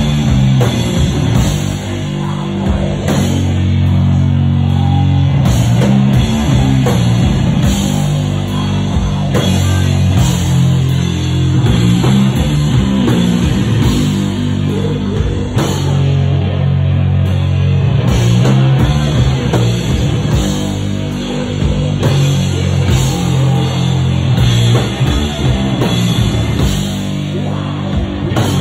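Sludge metal band playing live: loud distorted guitar and bass with a heavy low end over a drum kit.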